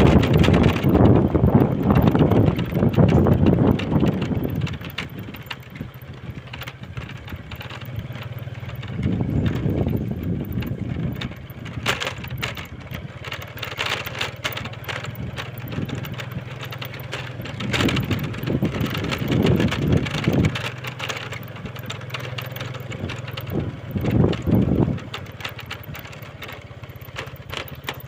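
Motor scooter's small engine running steadily with a low hum while it is ridden, with wind buffeting the microphone in gusts, heaviest in the first few seconds.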